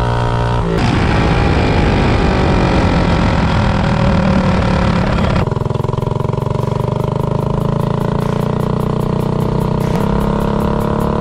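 Minibike's hot-rodded Predator 224 single-cylinder engine with a header pipe, running under throttle with road and wind noise. It is steady at first and rougher from about a second in; after a sudden change about five seconds in, its pitch climbs slowly and steadily as the bike accelerates.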